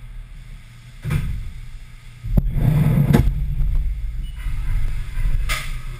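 Haas VF-3 series CNC vertical mill machining aluminum: a steady low hum of the machine, broken by bursts of rushing noise about a second in, for about a second from midway (opening with a sharp click, the loudest part), and again briefly near the end.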